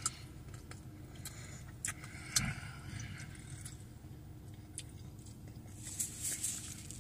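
A man chewing a mouthful of a soft breakfast sandwich with his mouth closed, with a few faint wet smacks and clicks, over the steady low hum of a car cabin.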